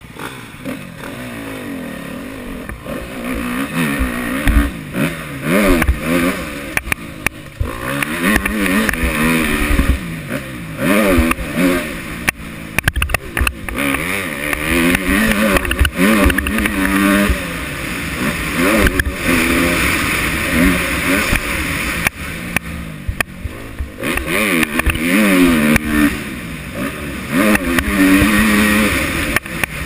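Motocross bike engine revving hard and dropping back over and over as it is ridden on a dirt track, its pitch climbing and falling every second or two, with scattered low knocks from the bumps.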